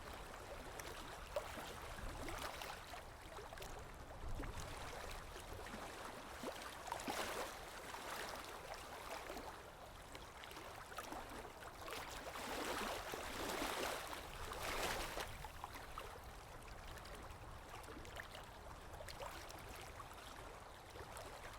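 Small ocean waves lapping, with a steady wash of water that swells and falls back every few seconds.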